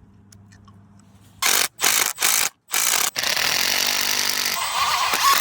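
Power drill running in three short bursts and then one long run, driving Tapcon concrete screws into asphalt.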